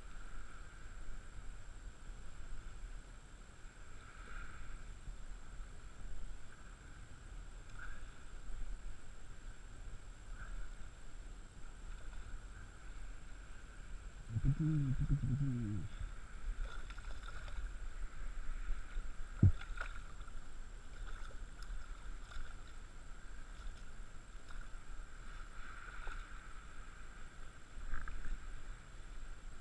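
Water lapping and splashing close around an angler wading in saltwater, with a short low vocal sound about halfway through and a single sharp click a few seconds later.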